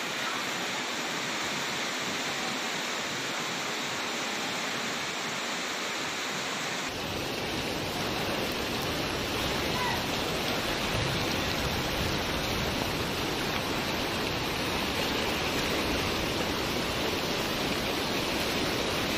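Fast-flowing muddy floodwater rushing past in a steady wash of noise. About seven seconds in the sound becomes deeper and fuller.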